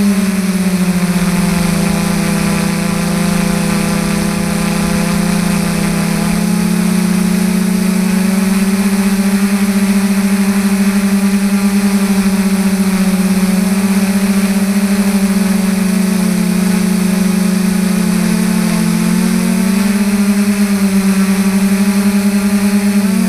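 Quadcopter's DJI 2212 brushless motors and 9450 propellers humming steadily, heard close up through the onboard GoPro. The pitch dips slightly about a second in and again past the middle, then climbs back near the end as the drone descends.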